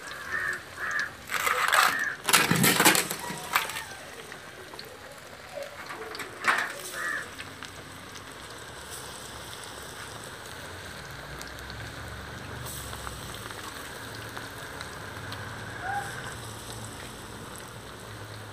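Oil sizzling steadily as vadas deep-fry in a wide pan, with a few loud noisy bursts in the first few seconds.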